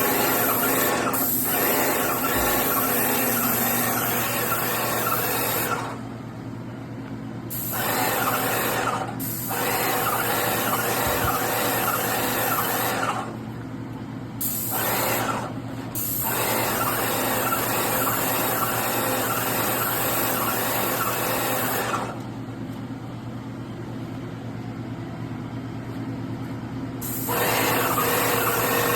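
Graco Magnum X7 airless paint sprayer in use: the gun gives a loud, even hiss while the trigger is held, stopping and restarting several times with short breaks, then a longer break of about five seconds past the middle. A steady low hum from the sprayer's pump runs underneath throughout.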